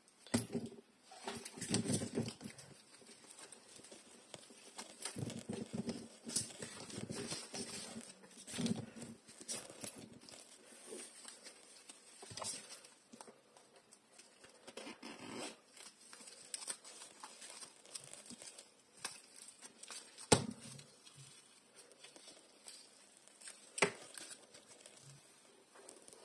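Soft, uneven rustling, crinkling and tapping of hands fitted with rolled-paper cone fingertips handling small plastic toys and a plush bag. Two sharp clicks stand out, one about twenty seconds in and another some four seconds later.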